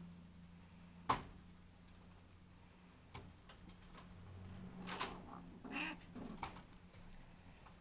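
Mated rabbits shifting about in a wire cage: a scatter of light clicks and rattles from the wire floor and sides. They are busiest about five to six and a half seconds in, with a short animal sound near six seconds.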